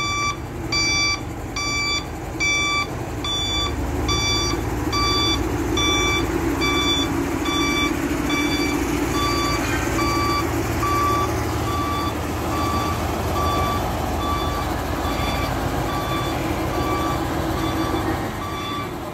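Truck reversing alarm beeping steadily, about once every 0.8 seconds, over the rumble of a Nissan CD320 concrete pump truck's diesel engine, which grows louder about four seconds in.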